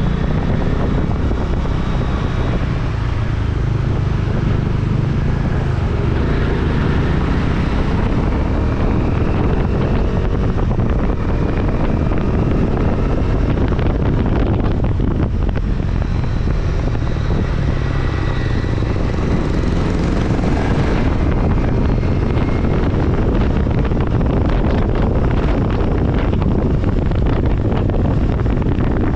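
A motor vehicle engine running steadily while under way, mixed with road and wind noise on the microphone.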